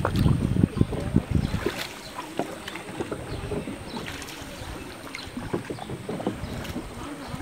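Wooden shikara paddles dipping and splashing in lake water as the boats are rowed, with scattered small splashes and knocks against the hulls. Wind rumbles on the microphone for the first couple of seconds.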